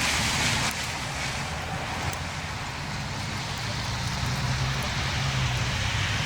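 Federal Signal STH-10 rotating outdoor warning siren sounding during an attack-signal test. Its level dips slightly under a second in.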